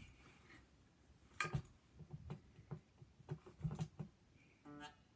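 Electric guitar strings being picked softly: scattered quiet plucks and string clicks, with a short pitched note near the end.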